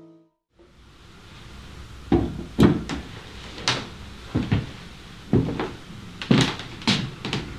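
Footsteps of hard-soled shoes on a hard floor, a man walking at an uneven pace. About a dozen sharp knocks begin about two seconds in, some landing in quick heel-and-toe pairs.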